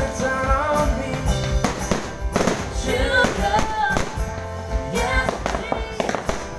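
Music with a wavering sung melody over a steady beat, mixed with sharp bangs and crackles from fireworks.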